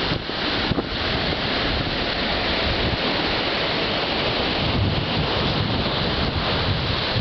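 Ocean surf breaking and washing up the sand in a steady wash, with wind buffeting the microphone as a low rumble.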